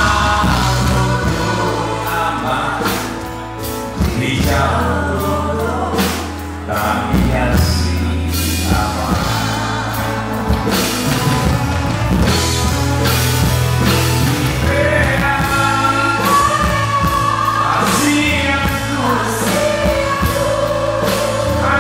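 A man and two women singing a song together into microphones, over band music with a steady bass line and drums.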